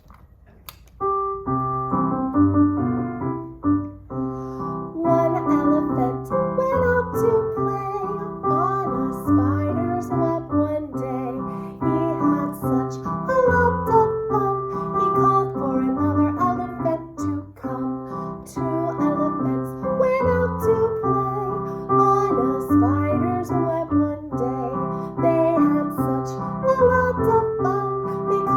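Piano music begins about a second in. A melody line with vibrato, sung or played, runs above the piano chords.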